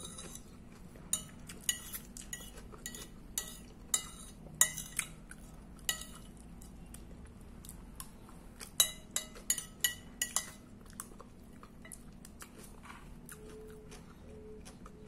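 Metal spoon clinking and scraping against a ceramic plate as the last of the food is scooped up: a run of sharp clinks through the first six seconds, then another quick burst about nine seconds in.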